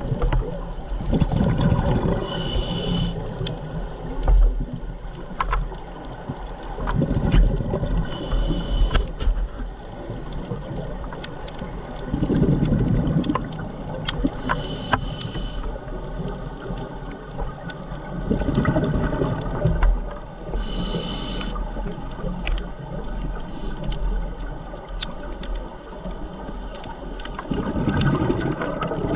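Scuba diver breathing through a regulator underwater, about five breaths roughly six seconds apart. Each breath has a high hiss with a faint whistle as the demand valve opens on the inhale, and a low rumble of exhaled bubbles.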